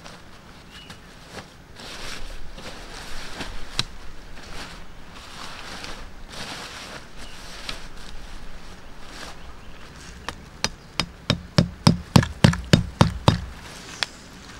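Nylon tent fabric and poles rustling and clicking as a camping tent is unpacked and spread out, then a quick run of about a dozen sharp knocks, about four a second, as a tent peg is driven into the ground.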